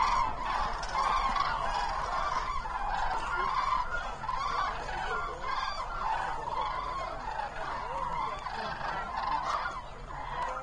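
A large flock of common cranes calling together, with many trumpeting calls overlapping in a continuous chorus.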